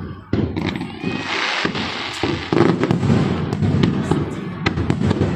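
Fireworks display going off: a rapid, irregular series of sharp bangs and pops over a continuous low rumble, with a hissing crackle about a second in.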